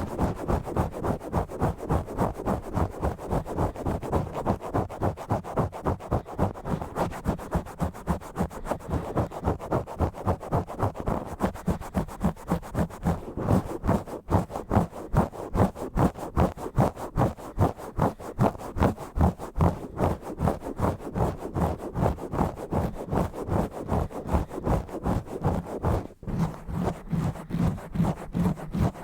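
Fingers scratching and rubbing directly on a bare microphone in fast, rhythmic strokes, about three a second, with a heavy, rumbling low end.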